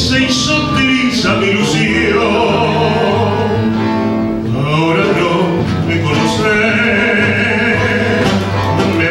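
A man sings a tango into a handheld microphone, holding long notes over instrumental accompaniment.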